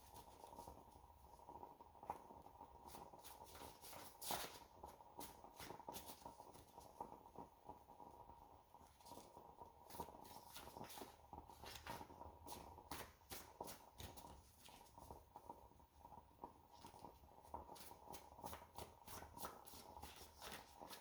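A deck of reading cards being shuffled and handled: faint, irregular card flicks and rustles, over a faint steady tone.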